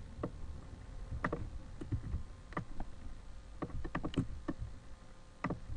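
Computer mouse clicking: a string of short, irregular clicks, some in quick pairs.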